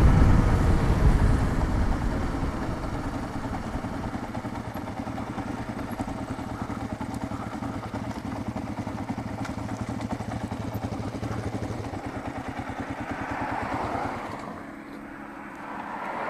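Kawasaki KLR650's single-cylinder engine and wind noise fading as the motorcycle slows and pulls onto the shoulder, then the engine idling with an even thump once the bike stops.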